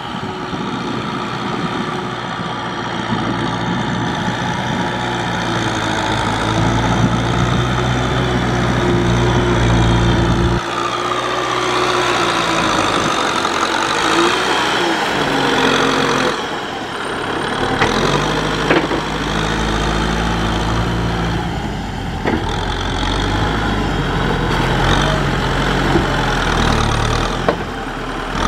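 Tractor engine running under changing load while ploughing mud, its speed and pitch shifting several times, with a few short knocks.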